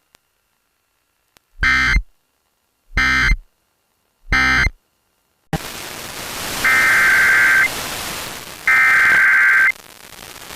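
Emergency Alert System SAME digital data bursts: three short screeching end-of-message bursts from one weather radio alert, then radio static and three longer header bursts of about a second each, two seconds apart, which open the next NOAA Weather Radio severe thunderstorm warning.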